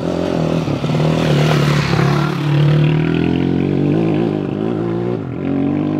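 Dirt bike engine riding past on a gravel road, getting louder as it approaches and fading as it goes by.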